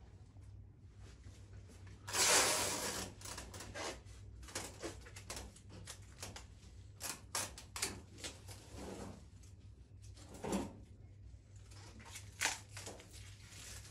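Rustling and handling of a large bouquet of fresh flowers on a wooden table, with stems and foliage brushing and being set down. There is one louder rustle about two seconds in, then short clicks, taps and rustles, over a low steady hum.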